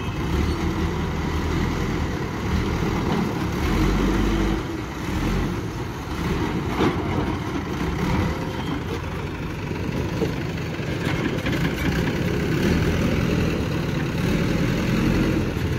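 A JCB 3DX backhoe loader's diesel engine running steadily as the machine manoeuvres, with a single short knock about seven seconds in.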